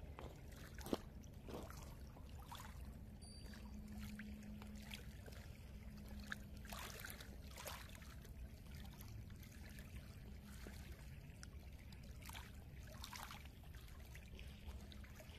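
Faint lapping and trickling of lake water at the shore's edge, with scattered small, irregular splashes.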